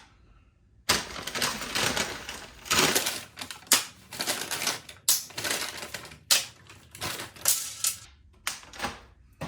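Rapid mechanical clattering in irregular bursts, like a typewriter or a receipt printer, starting about a second in after a short silence.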